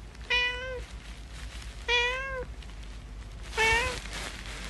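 Domestic cat meowing three times: short meows about a second and a half apart, the last one briefer.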